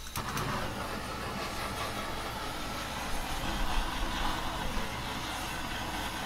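Handheld butane blowtorch flame making a steady hissing roar as it chars a sauce-glazed chicken skewer.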